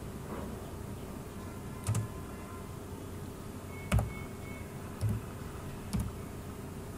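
Computer keyboard: four separate keystrokes, about a second apart.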